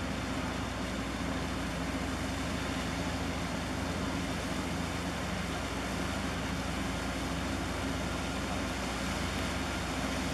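Steady low drone of a passing LPG tanker's engines and machinery, holding a few steady hum tones, over a constant rushing hiss.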